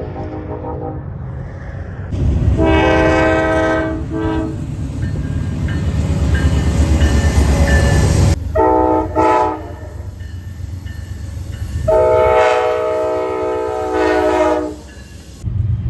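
Train air horns sounding a chord of several notes in a series of blasts: short toots, and long blasts of one to three seconds, the longest near the end. Under them runs the low rumble of a passing train, heaviest in the first half.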